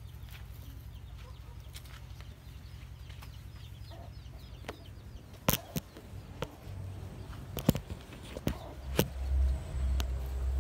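Chickens clucking and peeping faintly over a steady low hum. From about halfway there are sharp knocks and clicks, then a low rumble of handling noise on the microphone.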